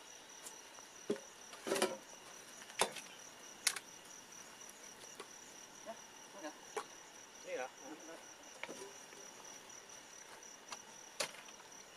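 Crickets trilling steadily, with a few sharp clinks and knocks from camp cooking pots and utensils being handled.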